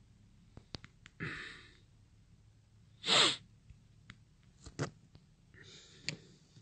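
A man's breath sounds close to the phone microphone: a breath about a second in, a loud, sharp burst of breath about three seconds in, and another breath near the end, with a few light clicks between.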